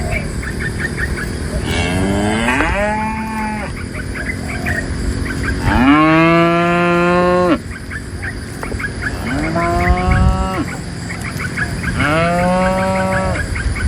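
Cattle mooing: four long moos, each rising at its start and then held, the second the longest and loudest.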